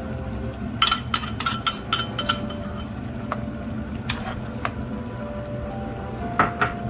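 Stir-frying: a metal spatula clinks against a pan in a quick run of about eight ringing strikes, then a few more scattered later, over a steady background of frying.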